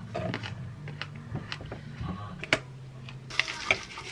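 Light clicks and taps of a glass jar and glassware being handled on a counter, then from about three seconds in a dry rustling patter of granola pouring out of the glass jar into a glass mug.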